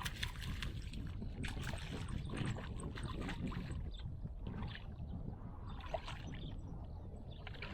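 Water lapping and splashing around a kayak, with small irregular knocks and a steady low wind rumble on the microphone.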